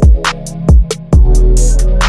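Hip hop instrumental beat: deep kick drums that drop in pitch, a quick run of hi-hat ticks and a sustained low bass line.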